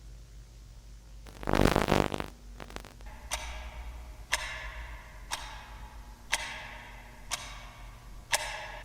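A harsh, buzzing burst of noise lasting about a second, then a clock ticking steadily once a second, six ticks, each with a short ring.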